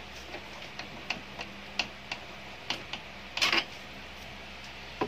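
Scattered light clicks and taps of plastic printer parts being handled during disassembly of a Brother laser printer, with a louder clatter about three and a half seconds in.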